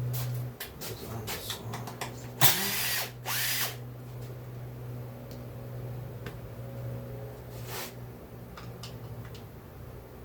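Power drill-driver with a Torx bit running to back screws out of a chainsaw being torn down for parts. Two louder bursts come about two and a half and three and a half seconds in.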